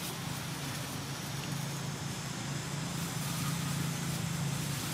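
Steady low hum under an even hiss of background noise, with no distinct events.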